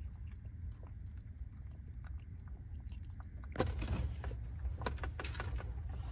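Two cats eating wet food: faint small wet clicks of chewing and licking over a low steady hum, with a louder knock about three and a half seconds in.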